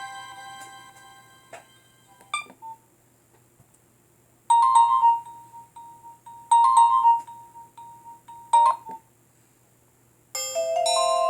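Nokia 1600 mobile phone playing ringtones of electronic notes through its loudspeaker. One tune fades out, a short phrase of notes sounds three times, and another busier ringtone starts near the end.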